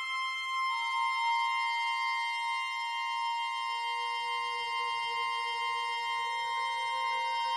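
Slow, sustained chord of long held notes from an accordion, saxophone and double bass trio, the tones very steady and pure. A new high note enters about a second in, and a lower note joins around halfway and steps up slightly near the end. It rings in the long reverberation of a stone mausoleum.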